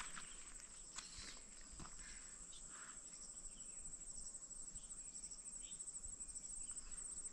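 Insects trilling in a steady, high-pitched, fast even pulse, with a couple of faint knocks about one and two seconds in.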